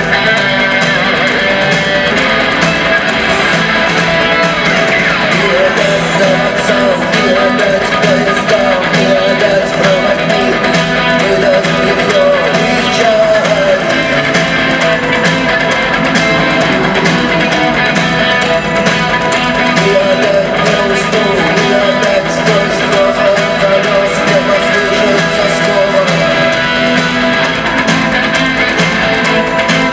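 Rock band playing live, with electric guitars to the fore over bass and drums, heard loud and steady.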